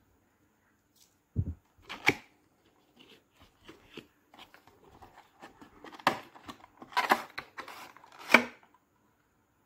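Small cardboard box being slit open with a knife and pried apart: a dull thump, a sharp click, then light scratching and three louder cardboard scrapes and snaps over the last few seconds.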